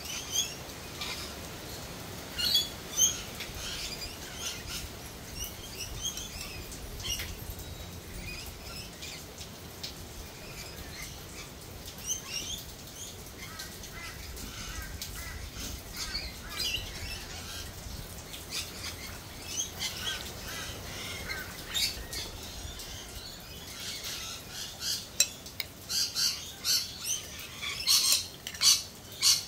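Birds chirping and calling over a faint steady hiss. About 25 seconds in, a run of loud, sharp calls starts and repeats about twice a second.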